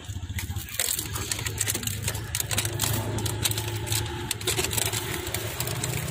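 A small engine running steadily at idle, a low even hum, with light clicking and clatter over it.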